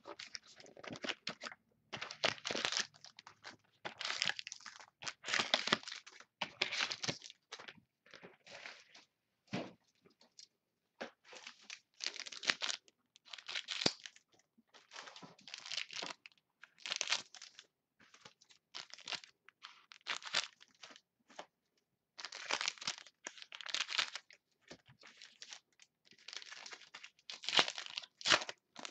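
Plastic wrapping on a box of trading cards crinkling and tearing as it is opened, with the cards handled. It comes in many short, irregular rustles with brief pauses between.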